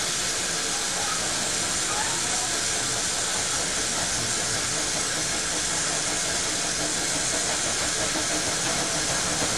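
Steam hissing steadily from a standing narrow-gauge steam locomotive.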